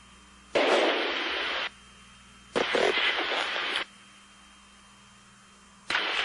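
Radio static on the crew's communication channel: two loud hissing bursts of about a second each as the channel keys open, over a faint steady hiss and low hum, with another burst starting near the end.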